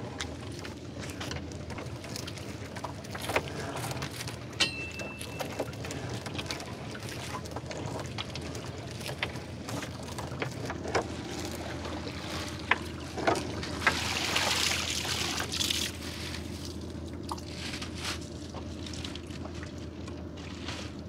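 Wet gill net being hauled up over the gunwale of a small wooden boat, water trickling and dripping off the mesh back into the river, with scattered clicks and knocks of the net against the hull. The water sound swells for a couple of seconds about two-thirds of the way through.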